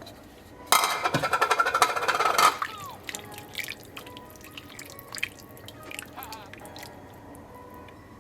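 Cooked turkey meat dropped into a pot of soup broth: about two seconds of splashing and clatter, then quieter scattered clinks and liquid sounds.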